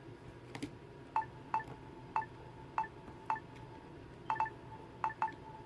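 A freshly repaired Samsung Galaxy A3 being pressed and tapped: about a dozen short, sharp clicks at uneven intervals, each with a brief ringing tone. They come as the home button is pressed while it is not yet aligned properly.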